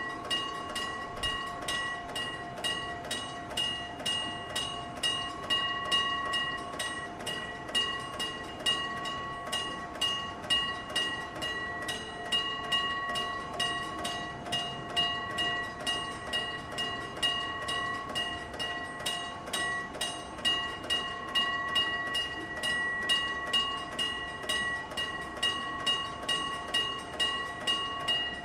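Electric bell of a railway level crossing ringing steadily, its gong struck about twice a second with the ring carrying on between strikes.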